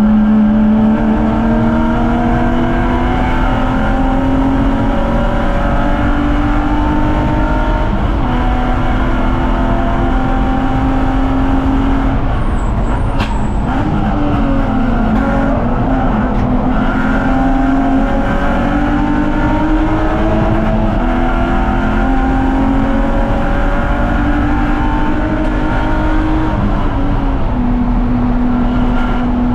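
BMW 330ci's 3.0-litre straight-six race engine pulling hard, its pitch climbing through each gear and stepping down at the upshifts. Around the middle the revs fall and waver through a braking zone and downshifts before the engine pulls up through the gears again.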